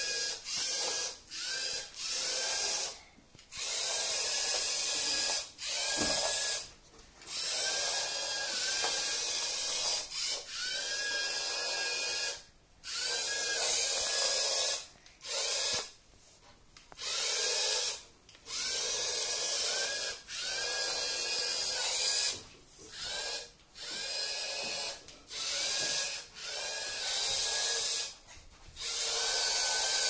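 LEGO MINDSTORMS EV3 robot's geared electric drive motors whirring in repeated stop-start bursts as it is driven by remote control. Each burst starts with a short rising whine as the motors spin up, and some fifteen bursts come in quick succession.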